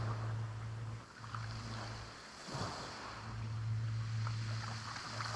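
Surf washing on the shore and wind on the microphone, under a steady low hum that drops out briefly twice.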